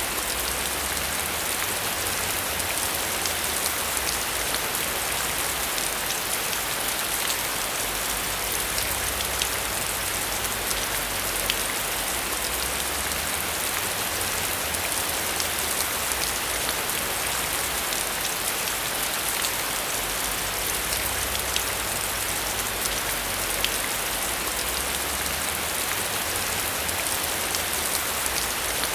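Steady heavy rain: a dense, even hiss of falling water with many sharp individual drop ticks through it.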